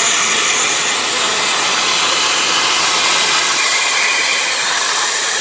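CNC plasma cutter torch cutting steel plate: a loud, steady hiss of the plasma arc and its air jet.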